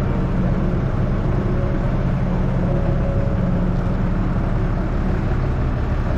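TCM forklift's diesel engine running steadily while the forklift carries a heavy stack of sandwich panels on its forks.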